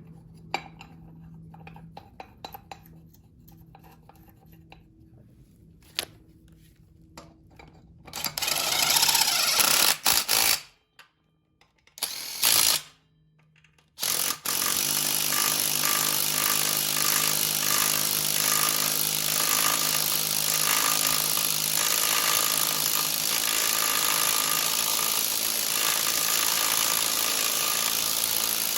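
Light clicks of hand tools on metal, then a power tool running loud and steady with a low hum, cutting out briefly a couple of times before running on without a break.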